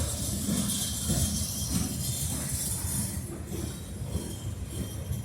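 Freight train of steel-coil cars rolling past at slow speed, with a steady rumble of wheels on the rails and a high hiss.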